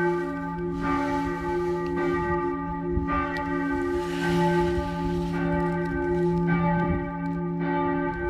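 Church bells pealing: several bells of different pitch, struck about once a second, their tones ringing on between the strokes.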